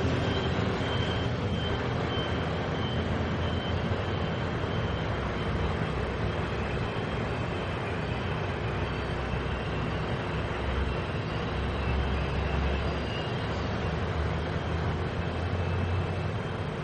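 A Taiwan Railways train approaching the platform slowly, with a steady low rumble.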